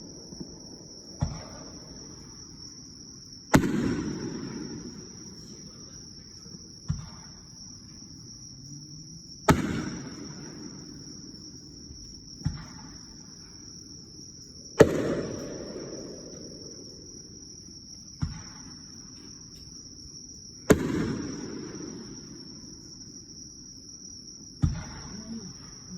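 Aerial fireworks shells bursting: four loud booms about every six seconds, each trailing off in a rolling echo, with a softer thud about two seconds before each. A steady high cricket trill runs underneath.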